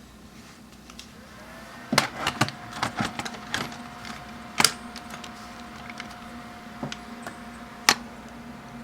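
Battery fitted into a Dell Latitude D520 laptop and the machine powered on: a run of sharp plastic clicks, then a faint rising whine that settles into a steady tone as the laptop starts up, with a few more single clicks.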